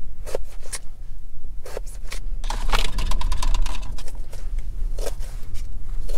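A kitchen knife knocking on a plastic cutting board as vegetables are chopped, in scattered single strokes, with a denser stretch of scraping midway as the cut pieces are pushed off the board into a bowl. A steady low rumble of wind runs underneath.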